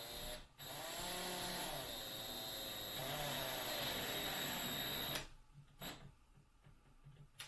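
Power drill running for about four and a half seconds as it drives a screw into the wall, its motor speed rising and falling, then stopping.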